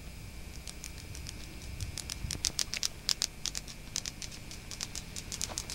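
Footsteps crunching and scuffing on a gritty road: a quick, irregular run of sharp clicks that starts about half a second in and is busiest in the middle, over a faint low rumble.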